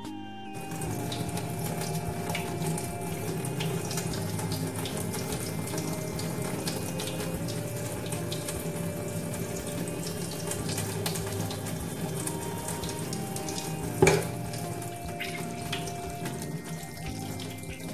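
Tap water running and splashing into a sink as freshly caught river fish are rinsed clean. Soft background music plays over it, and there is a single sharp knock about 14 seconds in.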